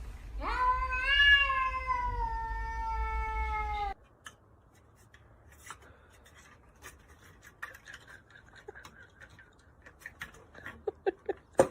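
A cat giving one long, drawn-out meow that rises at first and then slowly falls in pitch, cut off suddenly after about three and a half seconds. Then only faint clicks and a few short soft sounds.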